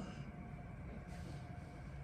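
Low steady background hum with a brief soft rustle about a second in.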